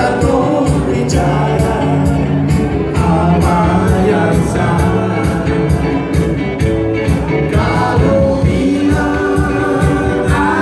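Live band playing dance music, a singer's voice over a steady drum beat.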